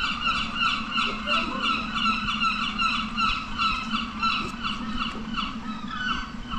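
Birds calling: a steady run of short honking calls, about three a second.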